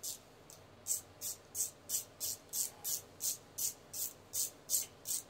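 Hand ratchet clicking in short, quick back-and-forth strokes, about three a second, as bolts on a Gen 3 Hemi timing set are snugged up.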